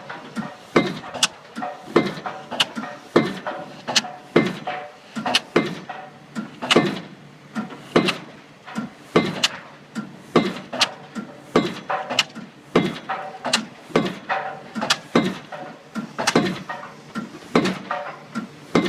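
Junttan pile driving rig's hammer striking a pile with a steady rhythm of loud metallic blows, about one every 1.2 seconds, with lighter clanks in between.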